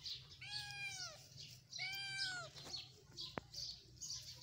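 Kitten meowing twice, two drawn-out mews each rising then falling in pitch and lasting under a second.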